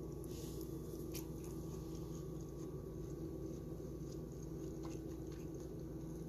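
Steady low hum of room tone with a few faint soft clicks.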